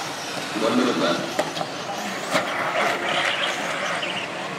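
Electric 4WD stock-class RC buggies racing on a dirt track, their motors whining, with a couple of sharp knocks about one and a half and two and a half seconds in.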